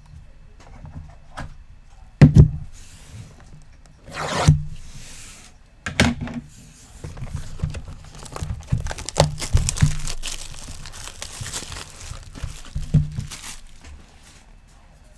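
Plastic shrink wrap being torn and crinkled off a cardboard box of sports cards, with several thunks of the box being handled.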